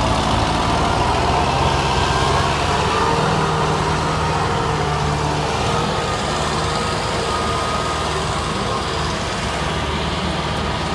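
Massey Ferguson tractor diesel engines running steadily under load as they work the field, with a whine that wavers slightly in pitch.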